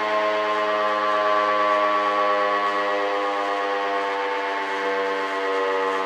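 A three-phase W.S. Darley STH-10 outdoor warning siren sounding the attack signal: a loud, many-toned siren wail whose pitch sags slowly and starts climbing again near the end, the rise and fall of the attack signal.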